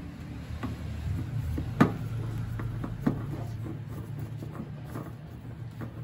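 Screwdriver turning out the mounting screw of a microwave's turntable synchronous motor: small scraping and handling noise with a few sharp metal clicks, the loudest about two seconds in. A low steady hum runs underneath.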